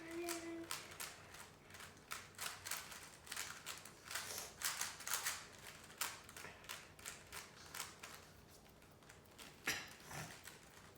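Rubik's cubes being turned quickly by hand, a fast irregular clatter of plastic clicks from the layers snapping round. The clicking is densest in the first half, thins out later, and one sharper click comes near the end.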